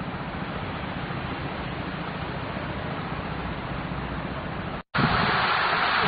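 Steady rushing noise. It drops out for an instant about five seconds in and comes back louder.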